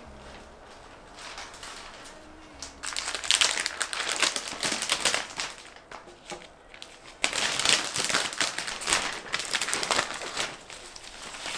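Clear cellophane wrap crinkling as it is handled and folded around a wreath of fresh greenery. It comes in two long stretches of rustling with many small crackles, the first about three seconds in and the second from about seven seconds in.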